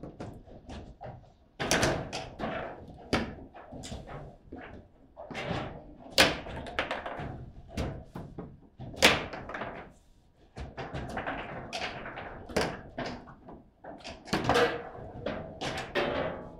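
Foosball game in play: the hard ball and the rod figures knock and clack against each other and the table in an irregular run of sharp hits, two of them much louder than the rest.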